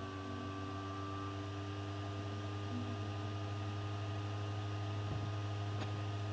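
Steady low electrical hum with a few faint, steady higher tones, slowly getting a little louder.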